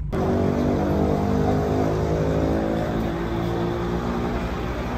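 Motor vehicle engine running steadily, its pitch easing slightly lower over the first two seconds and then holding.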